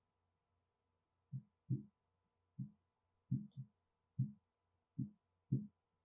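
Stylus tip knocking and stroking on the glass of an interactive display screen as digits are written: about nine short, dull taps at an uneven pace, one or two a second, with two close together about halfway through.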